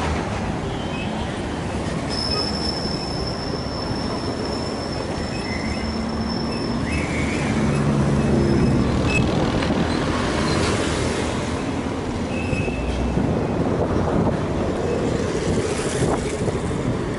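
Busy street traffic: cars, taxis and motorbikes passing, with a steady rumble of engines and tyres. A thin high squeal starts about two seconds in and holds for about five seconds.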